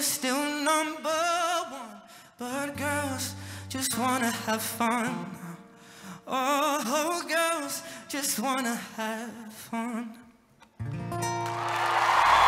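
Young male voice singing long held notes with wide vibrato over an acoustic guitar. The song ends about eleven seconds in, and audience applause and cheering swell up.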